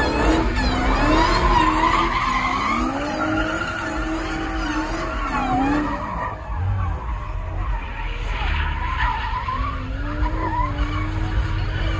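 Dodge Challenger Hellcat's supercharged V8 revving up and down again and again while its rear tyres screech and spin through donuts. The engine note eases off about halfway through, then climbs again.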